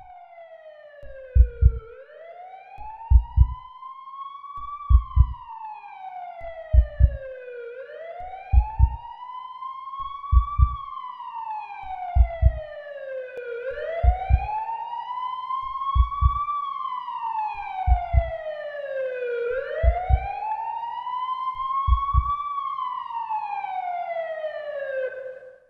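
Emergency vehicle siren wailing in slow rises and falls, about one cycle every six seconds, growing louder. Under it a slow heartbeat of paired low thumps comes about every two seconds. Both cut off just before the end.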